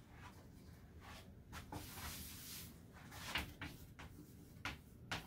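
Faint taps and scratches of chalk on a chalkboard as words are written, a handful of short sharp clicks with a brief scratchy stretch between them.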